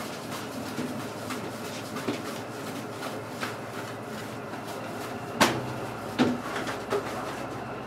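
Thick wet mooring rope being handled on a boat's deck: scattered light knocks and slaps, with two sharp thuds a little past halfway, over a steady background noise.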